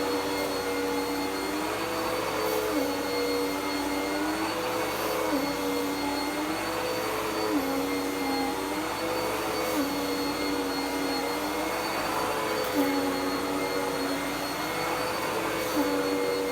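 Dirt Devil PowerMax Pet vacuum running steadily, its motor tone dipping in pitch and coming back up every few seconds.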